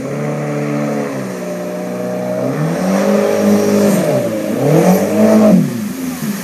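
Jet boat engine revving up and down several times as the boat swings through hard turns close by, its pitch rising and falling, loudest about five seconds in. A hiss of water spray from the jet rises under it.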